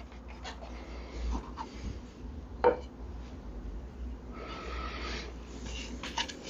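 Light workshop handling sounds: wooden test pieces and tools being moved and rubbed on a bench, with a few small taps and one sharper click near the middle, over a low steady hum.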